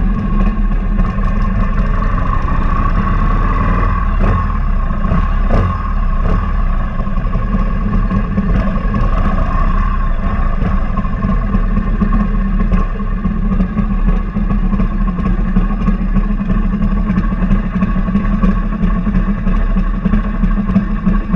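A 2003 Big Dog Bulldog chopper's S&S V-twin engine running steadily as the bike cruises along a road, heard close up from a handlebar-mounted camera.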